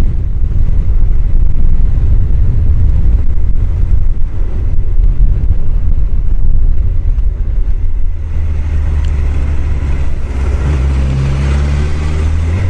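Riding noise on a Honda CBR1000F: heavy wind rumble on a helmet microphone sitting behind the chin-bar air vent, over the bike's inline-four engine. About eight seconds in, the wind rumble eases and the engine note comes through as a steadier hum.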